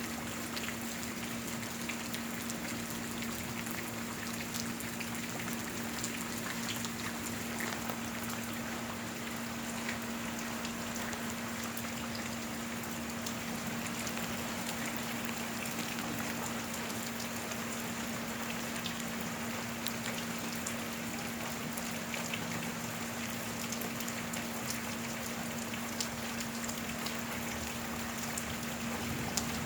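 Steady rain falling, a constant wash of sound with many individual drops ticking on surfaces. A steady low hum runs underneath.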